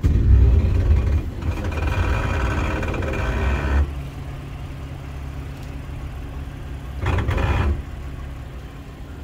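2022 Nissan Frontier's 3.8-litre V6 pulling under throttle for about four seconds while crawling a dirt trail, then dropping back to a low steady run, with another short louder push about seven seconds in.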